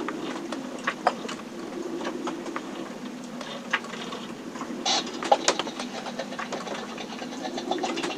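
Sailboat creaking and knocking as it works in a storm, heard from inside the cabin: a steady low rushing with scattered irregular clicks and creaks, and a brief louder clatter about five seconds in.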